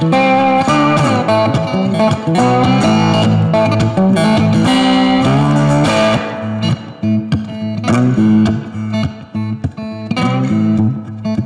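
Background music led by guitar, with plucked and strummed notes over a bass line; it thins out a little about halfway through.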